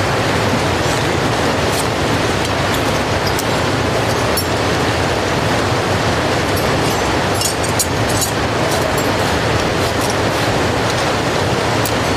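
Steady rushing of river water spilling over a low dam, an even hiss-and-rumble with a few faint clicks in the middle.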